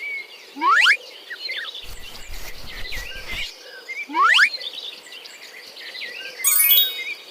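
Outdoor birdsong: many short high chirps, with a loud upward-sweeping call twice, about half a second in and again about four seconds in, and a quick rattling trill near the end.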